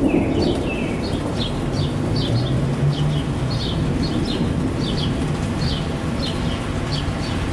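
A bird chirping over and over in short, high notes, often in quick pairs, over the steady low rumble of a thunderstorm.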